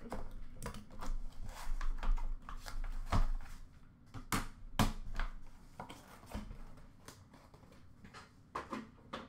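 A cardboard box of a graded card being opened and the card in its hard plastic slab lifted out of the foam and set down: a string of irregular clicks, taps and light rustles, busiest in the first five seconds and sparser after.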